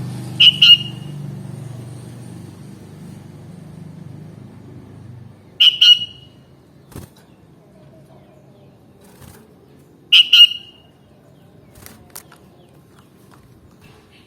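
Sooty-headed bulbul giving short, sharp double call notes, three times about five seconds apart. A low rumble fades out during the first few seconds.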